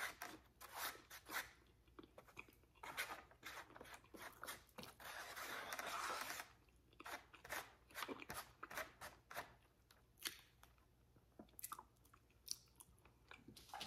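Faint close-up chewing and crunching of food, with scattered mouth clicks and smacks and the scrape of a plastic fork in a foam takeout box.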